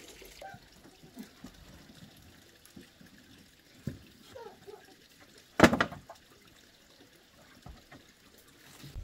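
Faint trickling and small handling sounds, with one sharp knock a little past halfway through.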